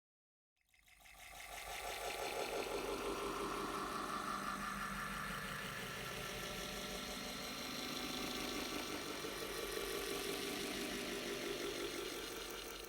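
Water being poured into a glass in one continuous pour. It fades in out of silence about half a second in and then runs steadily.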